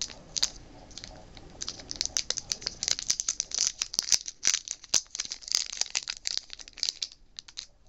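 Foil booster-pack wrapper crinkling and crackling as it is worked at and pulled open by hand: a few clicks at first, then a dense run of sharp crackles from about two seconds in, stopping just before the end.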